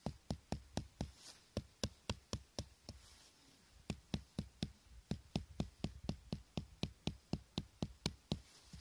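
Tent peg being hammered into hard ground: a quick run of sharp knocks, about three to four a second, with a brief pause about three seconds in.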